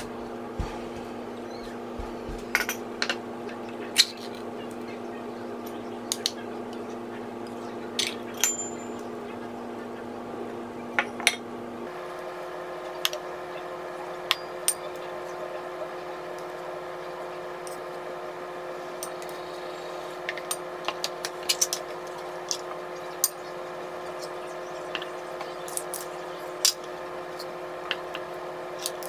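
Light clinks and taps of a metal spoon and can against ceramic bowls, scattered irregularly, with a cluster around twenty seconds in. Beneath them runs a steady held background tone that shifts to a higher set of pitches about twelve seconds in.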